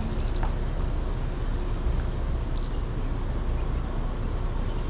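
Steady low rumble and road noise of a car driving.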